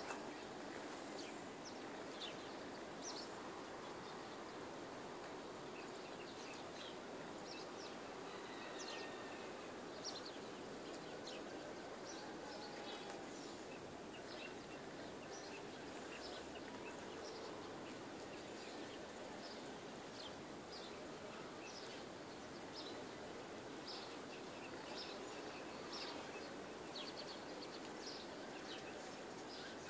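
Small birds chirping faintly, many short high chirps scattered throughout, over a steady rural background hiss.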